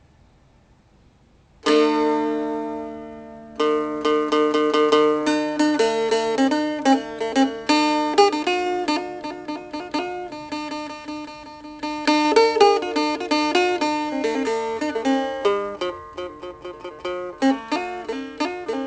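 Music on a plucked string instrument. After a near-silent start, a ringing chord comes in about two seconds in, then a quick picked melody.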